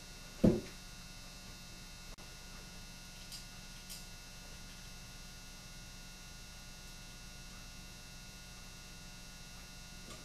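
Steady electrical mains hum under faint handwork as a screwdriver drives screws into a revolver's grip frame: one dull thump about half a second in, and two light clicks a few seconds later.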